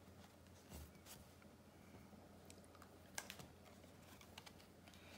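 Near silence, with faint small clicks and rustles from hands handling a cotton fabric bow tie and winding a rubber band around its pinched centre; the sharpest click comes about three seconds in.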